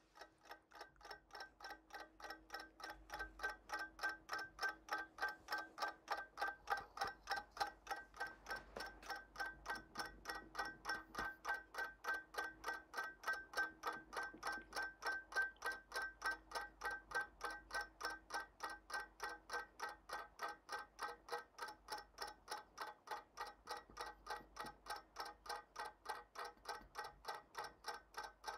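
Several clocks and watches ticking together: a fast, steady, even ticking that grows louder over the first few seconds.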